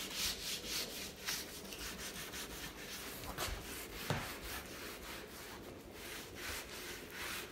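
Abrasive grip pad scrubbed back and forth over wet, weathered wooden bench timber, a steady run of hissing strokes about two or three a second, working off the last of the residue after a boiling-water rinse.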